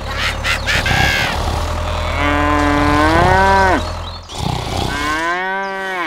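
Cows mooing: two long moos, one about two seconds in and one near the end, each rising and then falling in pitch, over a low steady hum that fades out just before the second moo.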